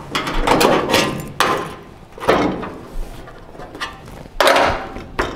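Sheet-metal roll pan being shifted against a truck's rear and clamped at the bottom: a series of irregular knocks and clanks of metal on metal.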